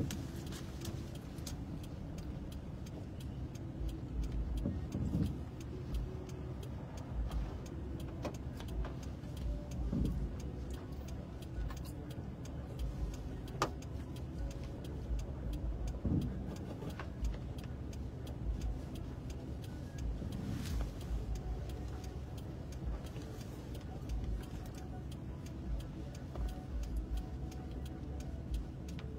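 Steady low hum of a car idling and creeping in slow traffic, heard from inside the cabin, with scattered faint ticks and irregular low thumps.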